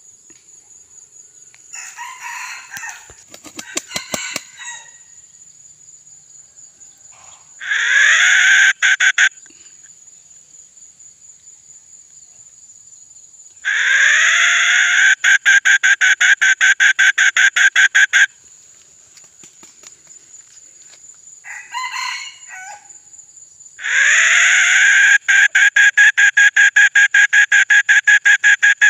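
Red junglefowl rooster crowing three times in a mid-pitched voice: a short crow, then two long crows that break into rapid pulses toward their ends, with a few softer calls before the first and the third crow. Insects shrill steadily behind.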